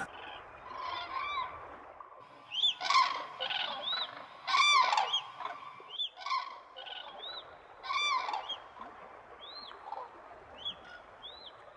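A flock of cranes calling: loud, trumpeting calls scattered through, several overlapping from different birds, with fainter calls between. Each call briefly rises and falls in pitch.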